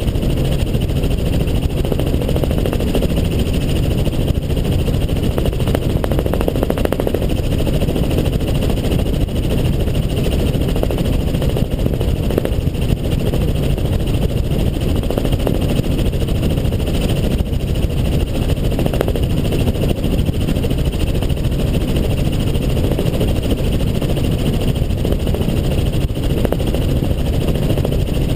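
Helicopter in flight: steady, loud engine and rotor noise that holds constant throughout, heavy in the low end with a fainter high hum.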